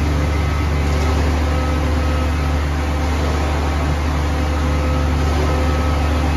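Concrete mixer truck's diesel engine running at a steady speed with a constant low hum, driving the mixer drum.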